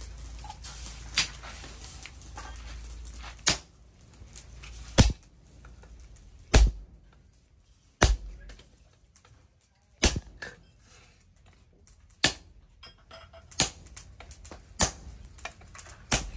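Hammer blows on a handled top tool held against a red-hot steel cleaver blade resting on a small anvil: sharp metallic strikes, about one every one and a half seconds, during hot forging.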